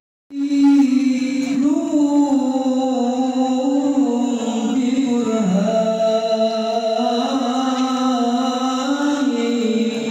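A man singing a sholawat solo into a microphone, unaccompanied: a melismatic opening line of long held notes that waver slowly in pitch.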